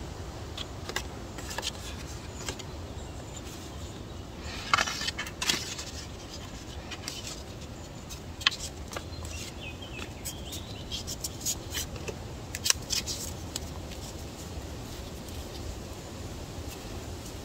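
Steel knife blade being worked on fine-grit sandpaper: scattered light scrapes and clicks, with a denser run of scraping about five seconds in and another cluster between eleven and thirteen seconds.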